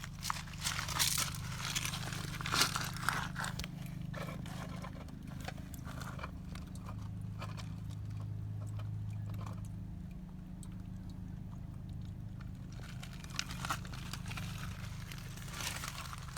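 Steady low hum, typical of a toilet's fill valve refilling the tank, with sharp clicks and scrapes of handling over the first few seconds and again near the end.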